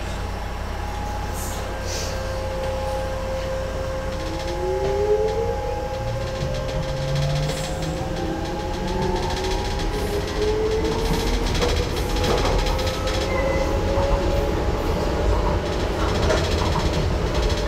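Docklands Light Railway train running between stations over a steady low rumble of wheels on rail. Its traction motors give whines that rise in pitch and grow louder as it picks up speed.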